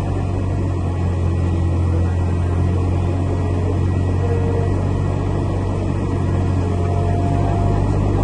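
Airbus airliner running on the apron during pushback: a steady, loud low drone with a constant deep hum and a wash of noise above it.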